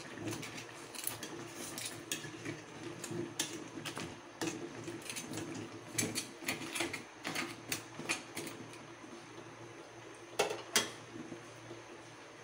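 Raw crabs clattering into a stainless steel pot of squash chunks, then a metal utensil clinking and scraping against the pot as they are stirred, in quick irregular knocks. Two sharper knocks come about ten and a half seconds in.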